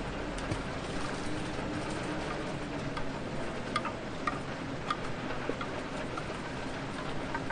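Steady rain falling, with scattered individual drops plinking and ticking irregularly on a hard surface, a few of them sharper around the middle.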